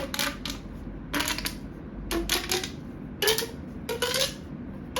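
Plastic pop tubes being stretched and pushed back together: short ratcheting pops with a brief pitched tone, in bursts about once a second.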